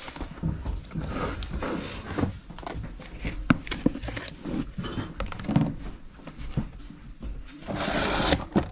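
Rummaging sounds: irregular light knocks, clicks and rustling of things being handled, with a louder rustle near the end.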